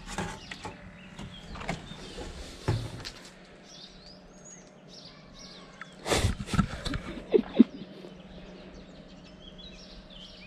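Small birds chirping in the background over a steady low hum, with a few loud thumps and knocks about six to seven and a half seconds in.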